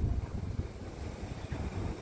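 Double-stacked container freight train rolling past: a steady low rumble of the wagons on the rails.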